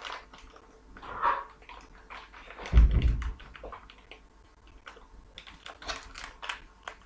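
Small paper sachets of baker's ammonia being handled and torn open: paper crinkling with many small sharp clicks. A dull thump about three seconds in.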